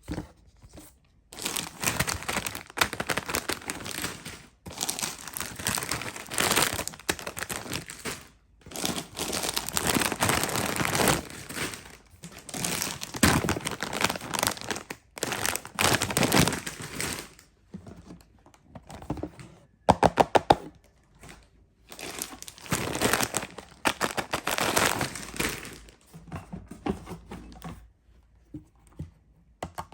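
Food subscription box being unpacked by hand: packaging crinkling and tearing in bursts, with short pauses between them. A quick run of clicks comes about twenty seconds in.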